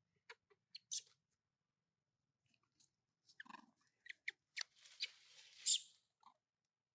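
Scattered sharp clicks and taps of things being handled, with a short crinkly rustle about five seconds in.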